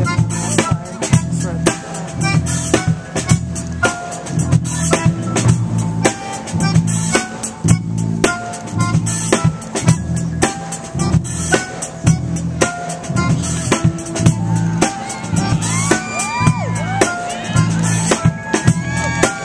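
Music with a steady drum beat and a deep, repeating bass line; near the end, short swooping tones rise and fall over it.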